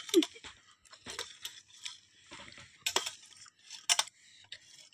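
Metal spoons clinking and scraping against a steel plate of soupy noodles: scattered light clinks, the sharpest about three and four seconds in.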